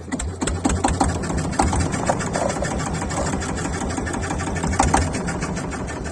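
A small fishing boat's engine running steadily under way, with a few sharp knocks over it.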